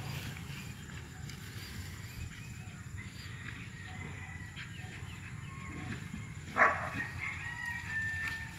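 A rooster crowing: a loud first note about six and a half seconds in, trailing into a thinner held note for about a second, over a low steady rumble.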